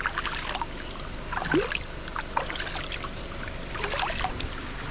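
Water running and splashing: a steady rush with many short, sharp splashes over it.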